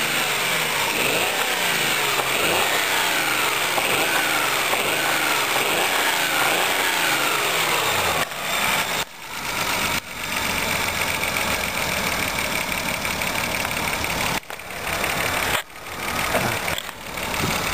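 Engine running at idle with a knock coming from the near cylinder head. The sound dips sharply in level a few times past the middle.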